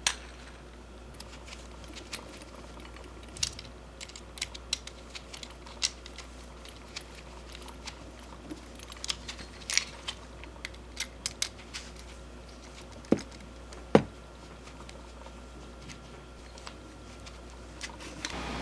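Scattered light clicks and taps of small hard parts being handled, with two louder knocks about a second apart later on, over a faint steady low hum.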